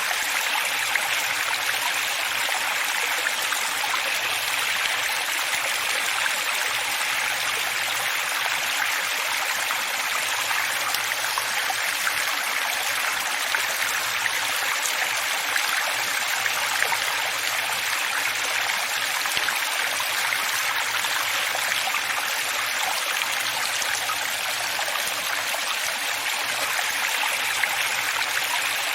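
Steady running water: an unbroken rushing, splashing hiss with almost no deep rumble, holding the same level throughout.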